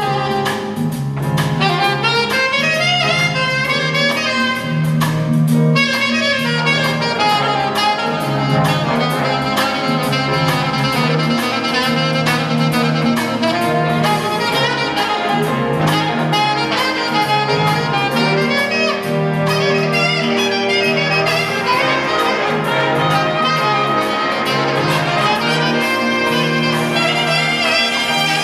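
Big band jazz played live: trumpets, trombones and saxophones together over drums and piano, with a repeating low riff underneath.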